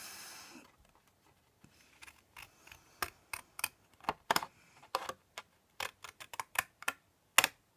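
Deckle-edge craft scissors snipping through card: a run of short, crisp cuts, about two or three a second, with the loudest snip near the end.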